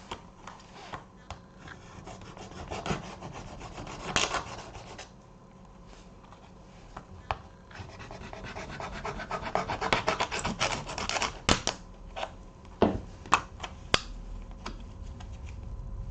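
Small plastic packets being handled and cut open: irregular rustling and crinkling with many sharp clicks, busiest in the second half.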